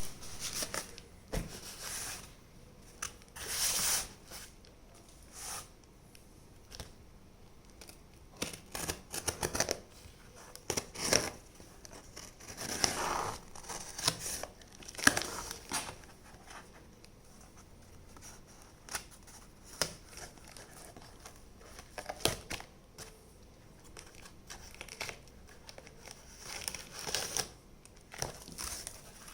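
Packaging being torn open and crinkled by hand, in irregular short rips and rustles.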